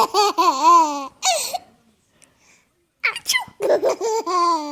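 A baby laughing in high-pitched, wavering bursts. There is a pause of about a second and a half before the laughter starts again.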